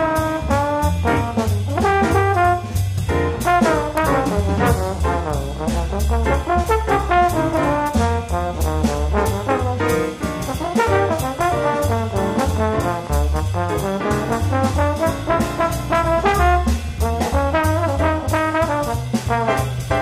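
Instrumental background music with a brass-led melody over a steady beat.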